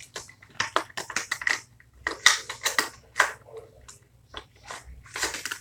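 Irregular clicks and crackles of small objects being handled close to the microphone, with no steady rhythm.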